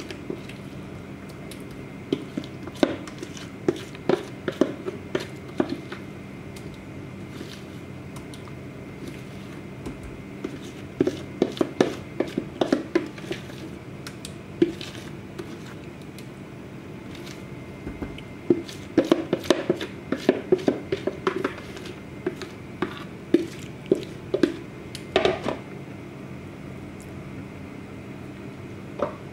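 Wet squelching and slapping of hands rubbing a thick spice-and-yogurt marinade into a raw leg of mutton in a steel platter, in bursts of quick squishes with pauses between.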